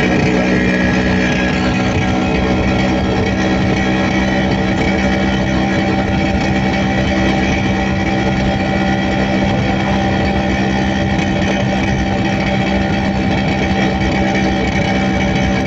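Vespa scooter's two-stroke single-cylinder engine running steadily at cruising speed, its note holding the same pitch and loudness throughout.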